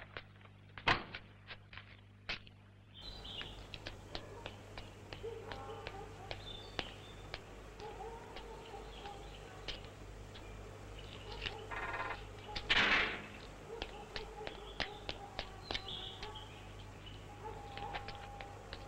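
Birds chirping and calling, with many scattered light ticks and taps. A short rattle and a louder swishing burst come about two-thirds of the way through.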